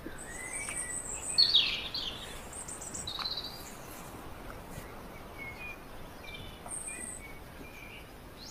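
Birds chirping, a string of short high calls and whistles over a faint steady background hiss; the loudest calls come about a second and a half in.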